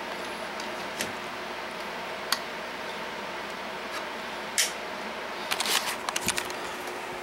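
Scattered sharp clicks and knocks from handling a lamp's plug and cord, with a rattling run of clicks about five and a half seconds in, over a steady electrical hum and hiss.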